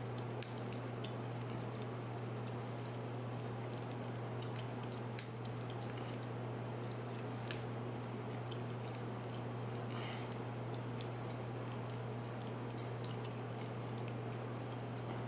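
Small sharp metallic clicks of a lock pick and tension wrench working the pins of a Master Lock 570 aluminium padlock during single-pin picking: three quick clicks near the start, a louder one about five seconds in and a lighter one a couple of seconds later, over a steady low hum.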